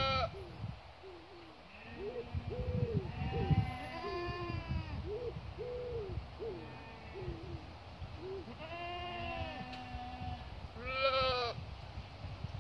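Boer goat and lambs bleating: a run of short calls, with longer wavering bleats about four seconds in and around nine seconds in, and a loud bleat near the end.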